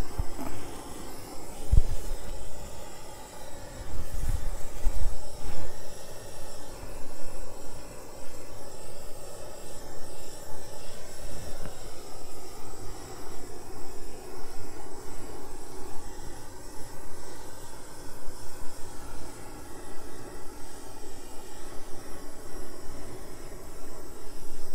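Handheld torch flame running with a steady hissing rush as it is played over wet acrylic paint to bring up cells. There are a couple of low bumps in the first few seconds.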